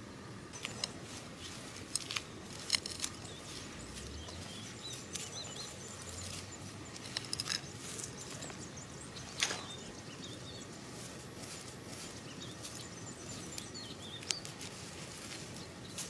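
Scattered sharp clicks and knocks over a steady background hiss, with small birds chirping faintly.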